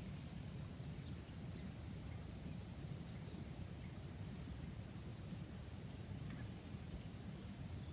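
Outdoor ambience: a steady low rumble under a few faint, short, high bird chirps, two of them clearer, about two seconds in and near the end.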